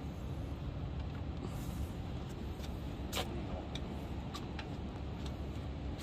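Steady low background rumble, with a few light clicks and taps from hands working on the air-conditioner unit's fittings. The clearest click comes about three seconds in, and a brief faint hiss comes a little before two seconds in.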